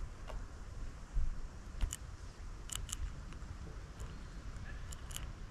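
Sharp little clicks of a blue tit pecking at a plastic peanut-butter jar and landing on a wooden board, a few at a time with pairs near 2 and 3 seconds in and again near 5 seconds, over a low wind rumble on the microphone.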